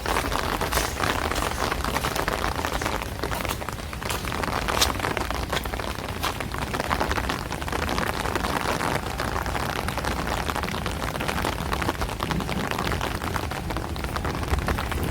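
Steady rain falling on hard surfaces, an even hiss with scattered sharper drop ticks, one standing out about five seconds in.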